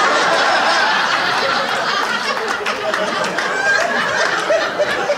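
Comedy club audience laughing together, a steady wash of laughter with scattered sharp claps.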